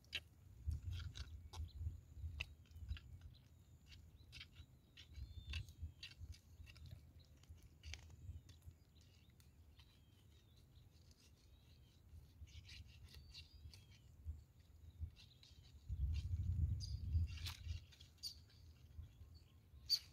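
Faint scattered clicks and rustles from a mud crab and a mesh bag being handled, with low rumbling and a few faint bird chirps about twelve to fourteen seconds in.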